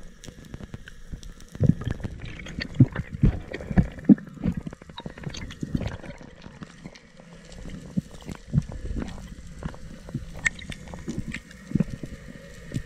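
Muffled underwater sound picked up by a diver's camera: water moving past it, with scattered clicks and low knocks.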